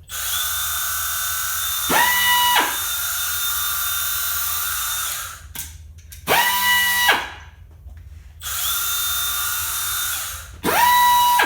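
Two small belt sanders (band files), a Milwaukee M12 FUEL bandfile and a 3M mini belt sander, run free in turn for comparison. Long steady runs with a hissing whine alternate with short bursts of under a second whose whine rises quickly as the motor spins up, three short bursts in all.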